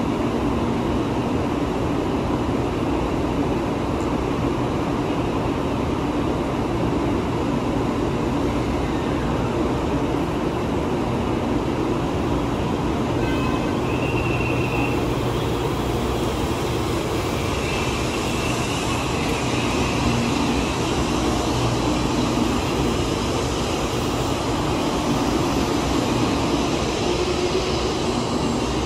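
Taiwan High Speed Rail 700T electric train pulling out of the platform and gathering speed, a steady loud running hum. Faint high whining tones come in about halfway through, and the rolling noise grows brighter toward the end as the cars pass faster.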